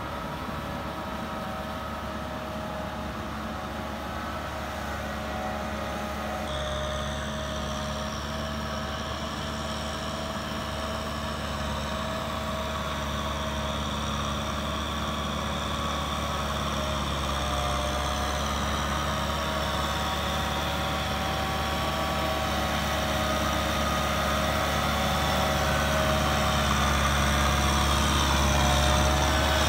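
Farm tractor engines running steadily while working a flooded rice paddy. About six seconds in the sound changes to a second tractor's engine, which grows steadily louder.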